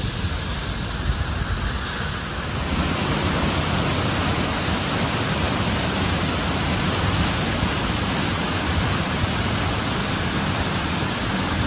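Waterfall rushing: a steady, loud roar of falling water that grows fuller about three seconds in.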